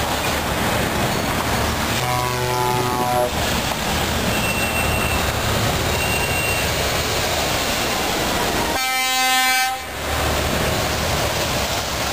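Heavy trucks driving past in convoy, their engines and tyres a steady rumble. A truck air horn sounds briefly about two seconds in, and a louder, fuller horn blast of about a second comes near the end.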